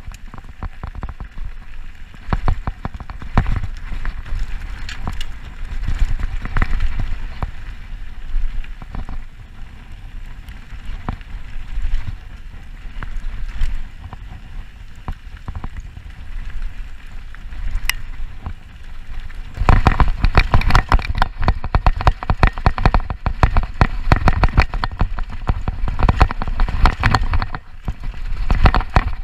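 Mountain bike descending a rocky gravel trail, heard from a body-mounted action camera: tyres crunching over dirt and stones, the bike and mount rattling with many sharp knocks, and wind rumbling on the microphone. It gets louder and rougher from about two-thirds of the way in.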